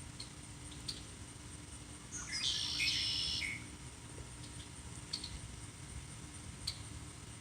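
A bird calls once, a burst of chirps about two seconds in that lasts just over a second. Faint ticks recur throughout.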